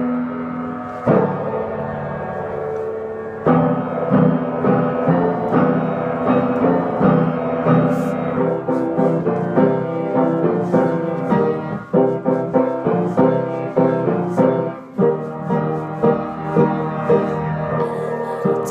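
Instrumental music: sustained pitched chords joined about three and a half seconds in by a quick, steady pattern of struck notes.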